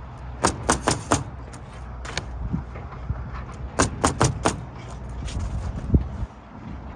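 Pneumatic roofing nailer driving nails into asphalt shingles: a quick burst of about four shots, then another burst of four about three seconds later, over a steady low rumble.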